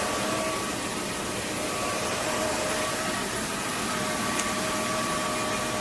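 roborock F25 RT cordless wet-dry vacuum running steadily: an even rushing hiss with a faint whine on top.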